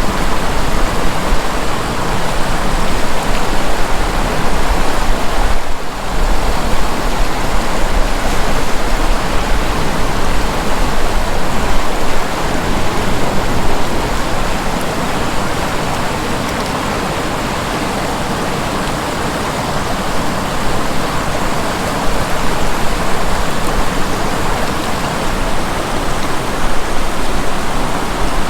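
River water rushing past a sandbar: a loud, steady hiss of flowing water, a little softer for several seconds midway.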